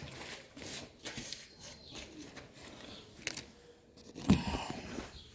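Irregular handling noises: small clicks and rustling, with a single thump about four seconds in.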